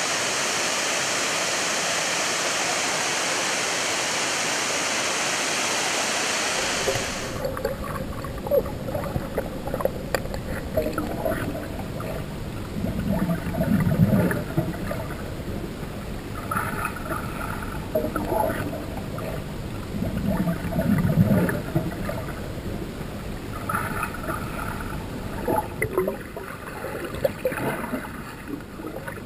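Rushing water of a waterfall and its churning pool, heard right at the water surface, then cutting off suddenly about seven seconds in to muffled underwater sound: gurgling, bubbling and a few louder sloshing surges from a swimmer's strokes.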